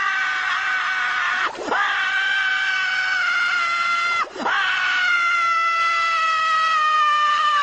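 Squidward screaming sound effect from SpongeBob SquarePants: a long, loud, high-pitched held scream. It breaks twice with a quick drop in pitch before catching again, and sags slightly in pitch toward the end.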